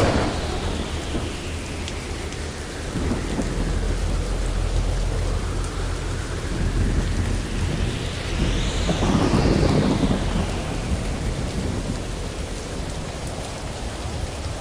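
Thunderstorm: steady heavy rain with rolling thunder. A sharp crack comes right at the start, a rumble follows about three seconds in, and a louder rolling rumble peaks about nine to ten seconds in.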